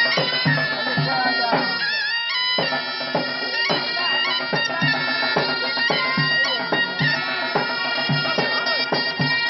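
Upper Egyptian folk music: shrill reed pipes (mizmar) playing a held drone and an ornamented melody over a steady drum beat of about two strokes a second.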